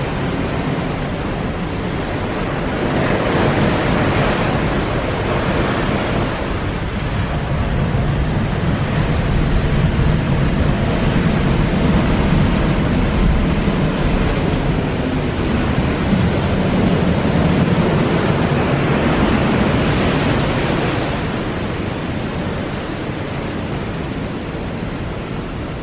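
Ocean surf breaking on rocks and washing up a sand beach, a steady wash of noise that swells and eases as the waves come in.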